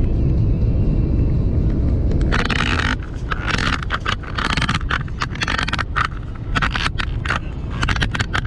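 A truck driving on the road, its engine and tyres giving a steady low rumble. From about two seconds in there are many sharp clicks and short bursts of rustling noise over it.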